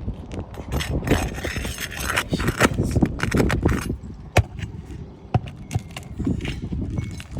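Scraping, clicking and knocking of hands and tools working on old asphalt roof shingles as they are lifted, with a few sharp ticks later on.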